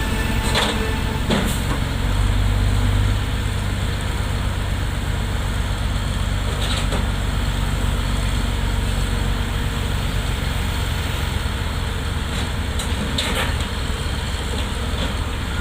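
Heavy diesel engine running steadily, swelling briefly near the start, with a few sharp knocks.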